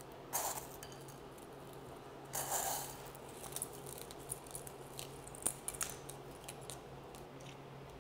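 Hazelnut crunch being scattered by hand: two short rustling bursts, then many small light clicks and ticks of the pieces, over a faint steady low hum.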